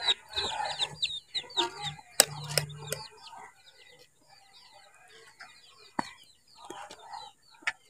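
Chickens clucking and peeping in many short, high, falling chirps, with a few sharp clicks about two seconds in and again near six seconds.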